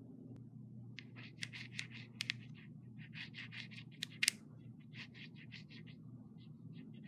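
Toy toothbrush scrubbing back and forth against a doll's teeth: runs of quick scratchy strokes, about five a second, starting about a second in and growing sparser near the end.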